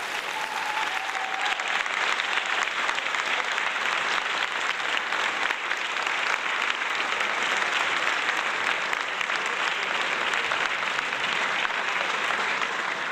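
Audience clapping and applauding steadily at the end of a live rock band's set, with a brief whistle just after the start.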